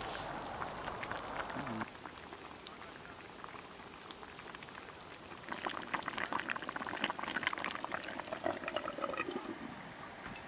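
Thick lamb and vegetable stew bubbling at a boil in an open clay güveç pot over charcoal, a dense popping and blipping that eases for a few seconds and then grows busier and louder about halfway through.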